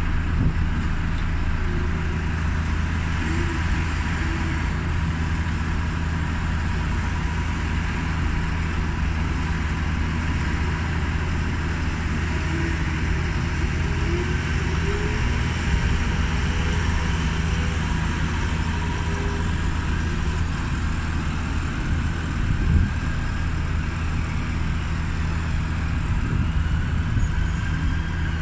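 City road traffic noise: a steady low drone of vehicle engines under a continuous hiss of passing traffic.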